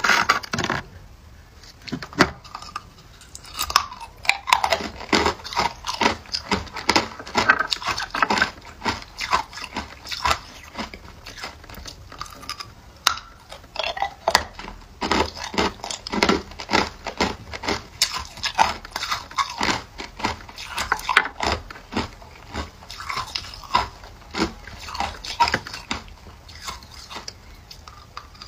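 A person biting and chewing hard round ice cubes: a dense, irregular run of sharp cracks and crunches that goes on without a break.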